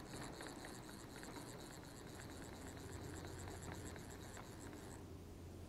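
Fly reel's click ratchet ticking fast and evenly as line is wound in, stopping about five seconds in.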